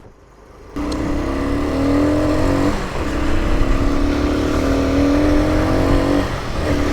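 Honda CT90's small single-cylinder four-stroke engine running under throttle on the move. It cuts in abruptly about a second in, with two brief dips in between, over a steady hiss of rain and wind.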